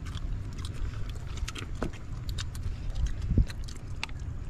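People eating with their hands from trays of rice and grilled fish: scattered small clicks and taps over a steady low rumble.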